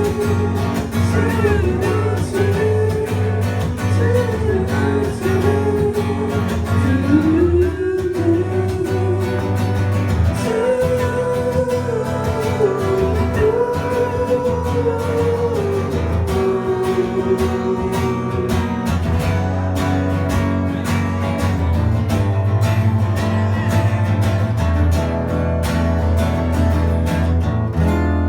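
Live acoustic folk music: strummed acoustic guitar over a steady bass, with a melody line wavering above it for much of the passage.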